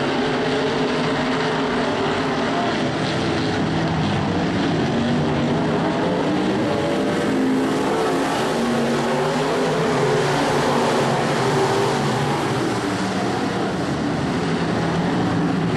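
A field of IMCA Modified dirt-track race cars running at speed, their V8 engines overlapping in a steady loud drone whose pitch wavers up and down as cars pass.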